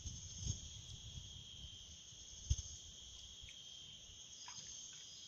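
Steady high-pitched chorus of insects, with a single dull thump about halfway through.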